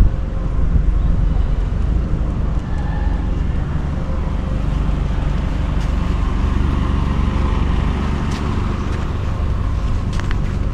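Outdoor street noise: a steady low rumble of road traffic, with a few faint ticks in the second half.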